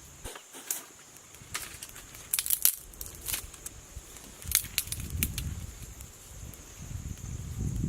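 Irregular sharp snaps and crackles of dry wood, with a low rumbling noise building near the end.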